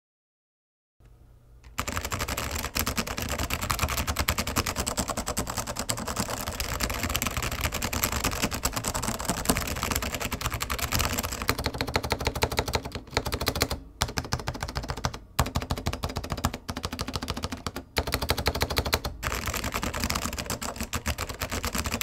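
Random typing on a Clueboard mechanical keyboard with SKCM Orange Alps switches, Signature Plastics DSA keycaps and a metal Alps plate in an acrylic sandwich case: a fast, dense stream of key clicks. It starts about two seconds in and is broken by a few short pauses in the second half.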